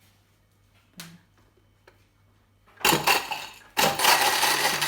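Panasonic blender on its ice-crush setting, ice rattling in the jar: a click about a second in, then a short burst of the motor at about three seconds, a brief stop, and the blender running on loudly from about four seconds.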